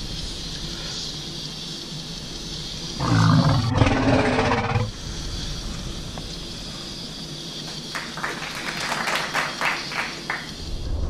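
A boy lets out a loud, rough groan of enjoyment, about two seconds long, a few seconds in, over a steady hiss inside the car. Near the end come a run of short, irregular wet clicks from his mouth as he chews a big bite of sandwich.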